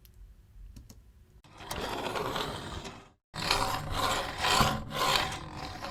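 Recorded Foley of a small wooden cart on an axle and bearings, run along a homemade tile-cutter rig: a rolling mechanical rattle. It starts about a second and a half in, stops briefly just after three seconds, then resumes, swelling and easing. This is the raw take for a cartoon toy car's rolling sound, before editing and processing.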